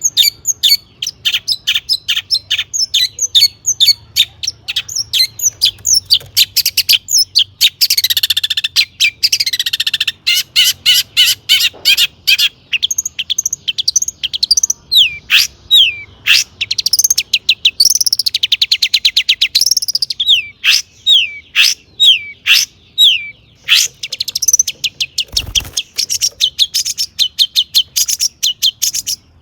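Long-tailed shrike singing continuously in a rapid, loud run of sharp chattering notes, many slurring downward. Two longer harsh, buzzy phrases come about a third and two thirds of the way through. This is the full 'gacor' song, with mimicked phrases of other birds woven in.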